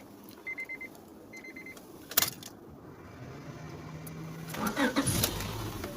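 A car's warning chime beeps a few times, a clunk follows, then the engine is cranked and starts about five seconds in, settling into a steady idle.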